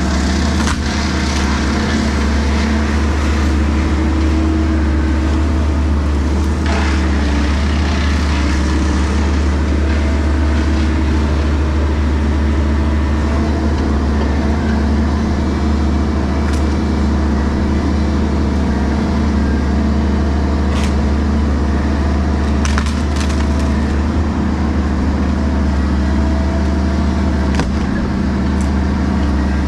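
Compact excavator's diesel engine running steadily, with a few sharp cracks and snaps of wood as trees and branches are handled.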